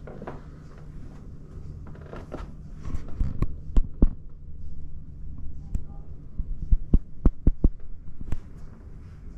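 A steady low hum with two clusters of sharp thumps, the first about three seconds in and the second around seven seconds, coming about three or four a second.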